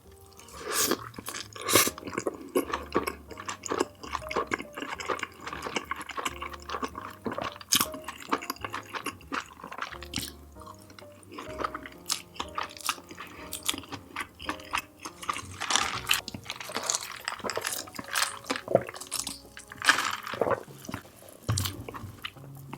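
Close-miked eating: wet chewing, smacking and mouth clicks, many small sharp sounds in quick succession. Soft background music plays underneath.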